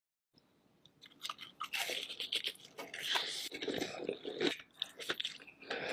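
Close-up crunching and chewing of king crab: the shell crackles and snaps in quick, irregular bursts while the meat is eaten, starting about a second in.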